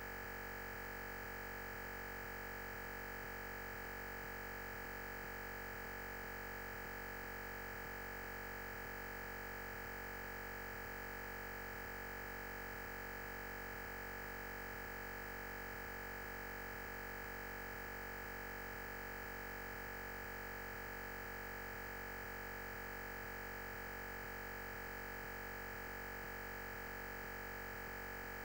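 Steady electronic hiss and hum with a constant high tone, unchanging throughout: recording-system noise with no speech or room sound coming through.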